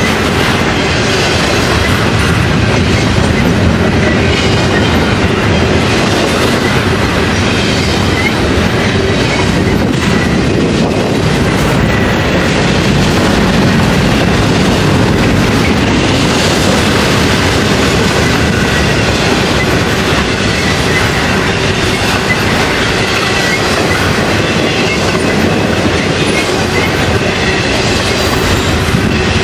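Train cars rolling past at close range: a steady, loud clatter of steel wheels on the rails, with a faint wheel squeal at times.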